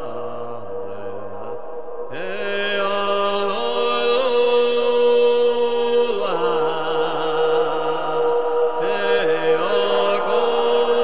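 Sámi yoik chanting over a steady drone with folk and electronic accompaniment. A low voice steps between a few pitches, and about two seconds in a louder, brighter, higher part joins and holds long, wavering notes.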